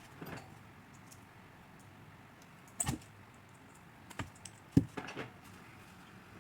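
A few scattered clicks and knocks of hands and tools working on a washing machine motor, the loudest about two-thirds of the way through.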